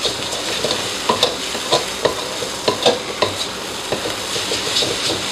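Spatula scraping and clacking against a wok, a dozen or so irregular strokes, as instant noodles with scrambled egg are stirred, over a steady sizzle of frying.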